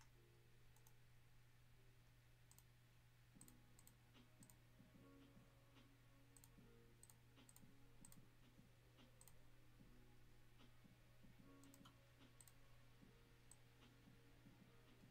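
Near silence with faint, irregular computer mouse clicks, several a second at times, over a steady low hum.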